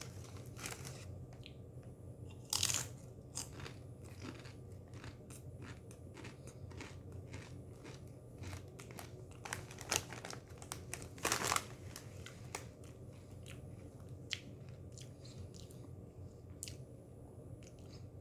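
Close-up crunching and chewing of tortilla chips: irregular crisp crunches, a few louder bites about two and a half seconds in and around ten to eleven seconds, over a low steady hum.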